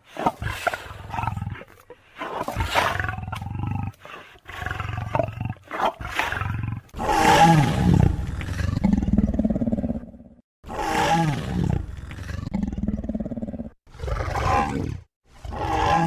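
Dinosaur roar sound effects: a string of deep, growling roars one after another with short silences between, the longest about three seconds in the middle.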